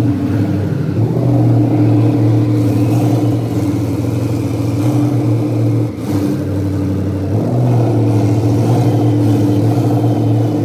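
Twin Mercury Racing 1350 V8 engines of a 2,700 hp powerboat running at low speed, a loud, deep, steady engine note. The pitch steps up slightly about a second in and again about seven seconds in, with a brief dip just before.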